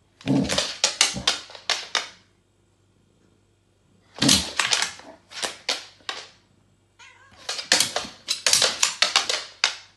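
A cat hissing and spitting in three bouts of rapid, sharp bursts, each bout lasting about two seconds with short quiet gaps between them.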